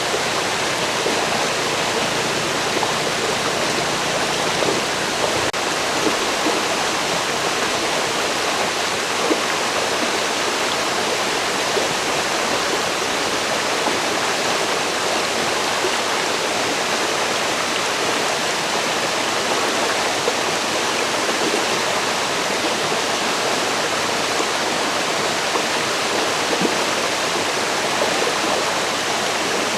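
Forest river running over rocks: a steady, even rush of flowing water.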